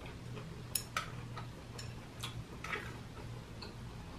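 Eating sounds: a handful of scattered, light, sharp clicks from a metal fork and chopsticks picking at food in takeout trays, over a low steady hum.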